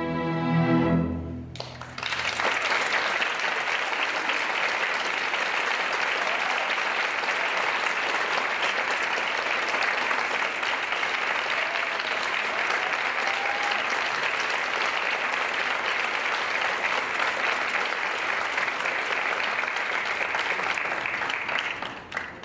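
A string orchestra's closing chord, held for about a second and a half, then audience applause for about twenty seconds that dies away near the end.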